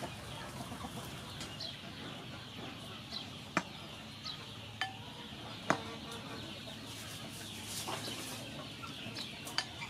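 Chickens clucking in the background, with a few sharp clinks and knocks of a ladle against a bowl and pot as the banana dessert is served. The loudest clinks come about three and a half and six seconds in.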